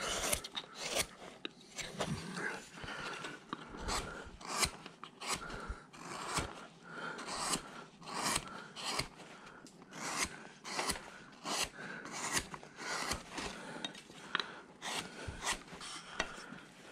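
Large number 9 carving gouge cutting into a wood block by hand: a run of short scraping, chipping strokes, about one or two a second.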